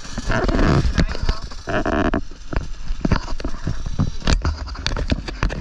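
Go-kart engines running at low speed, one kart passing close by, heard through a buffeted onboard camera microphone full of rapid knocks and rumble, with a short droning note about two seconds in.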